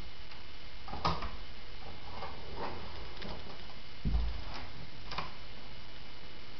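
Steady recording hiss with a handful of soft, irregular clicks and knocks and one dull thump about four seconds in: handling noise and footsteps from a handheld camera being carried through a small room.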